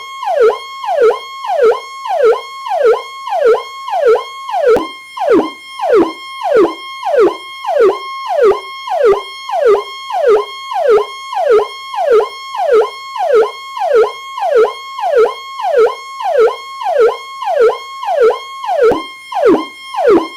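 Electronic police 'Powercall' siren: a high held note that drops quickly in pitch, repeated over and over at a rapid, even rhythm.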